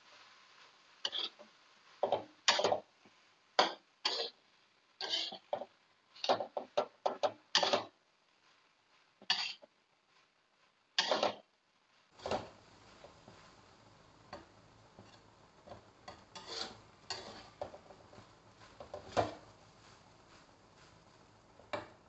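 Spatula scraping and knocking against a wok as fried rice is stirred and tossed, in quick irregular strokes. The strokes are loud for the first half and grow fainter about halfway through, over a steady low hum.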